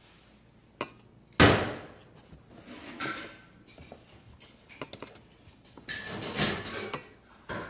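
Knocks and rattling clatter of a plastic pet carrier and its metal wire door as it is handled and opened. There is one sharp loud knock about a second and a half in, scattered lighter clicks, and a busier burst of clattering near the end.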